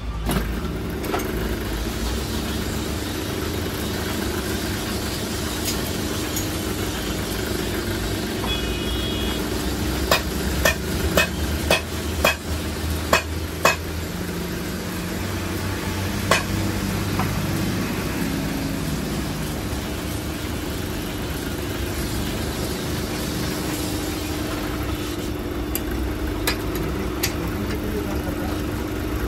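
A steady mechanical drone with a quick run of about six sharp knocks about a third of the way in, and one more knock shortly after.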